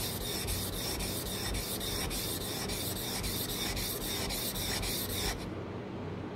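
Steel blade of a Japanese oire nomi bench chisel rubbed back and forth on a wet sharpening stone in slurry, a gritty scraping in quick, even strokes several times a second. The strokes stop suddenly about five seconds in.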